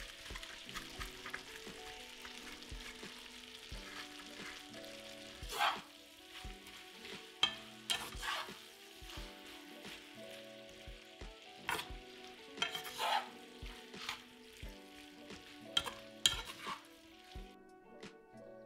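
Creamy farfalle pasta sizzling gently in a stainless steel skillet. From about five seconds in, a plastic spatula stirs it, making several sharp scraping strokes against the pan.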